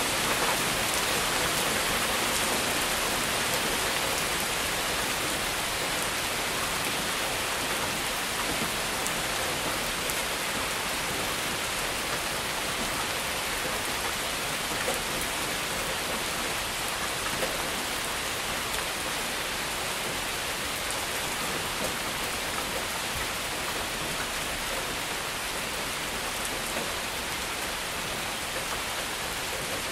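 Heavy rain falling steadily, with rainwater running through a gutter.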